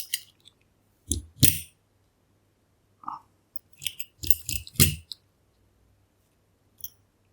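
Small metal clicks and taps of tiny dimple-lock pins and drivers being handled and set down: two clicks about a second in, a cluster of quick clicks around four to five seconds, and a faint tick near the end.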